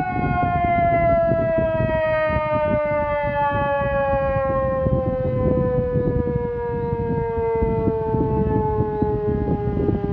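SES 600 civil defense siren sounding during a test, its wail falling slowly and steadily in pitch, over a steady low rumbling noise.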